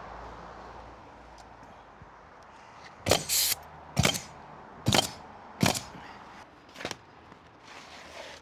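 Pneumatic roofing nailer firing five times, about a second apart, nailing an asphalt shingle to the roof deck.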